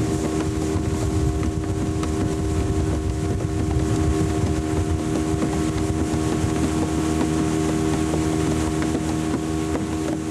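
Motorboat engine running at a steady speed with wind and water noise; a constant engine hum with several fixed tones over a rushing hiss.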